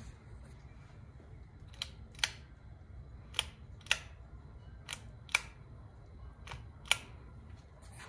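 Pull-chain light switch on a 2002 Hampton Bay Jericho II ceiling fan being worked by hand. It clicks in four pairs: a click on the pull and another on the release, about half a second apart, with the pairs roughly a second and a half apart. This is the fan's original 3-way light switch, which the owner says failed on the two-light setting, turning off when the chain was let go.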